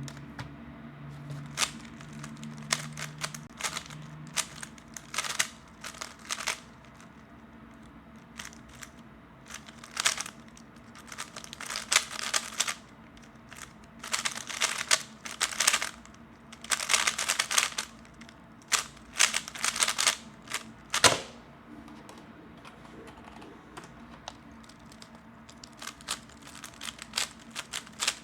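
3x3 Rubik's cube being turned fast, its plastic layers clicking and rattling in quick bursts with short pauses between them.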